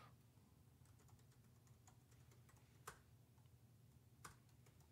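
Faint computer keyboard typing: a few scattered soft keystrokes, with two louder clicks about three and four seconds in.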